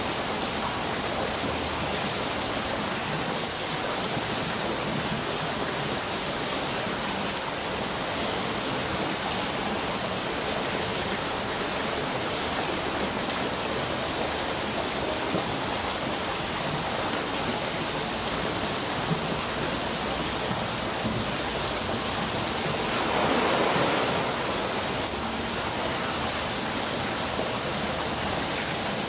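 Steady rush of running water in a polar bear pool, with a brief swell of louder water noise about three-quarters of the way through.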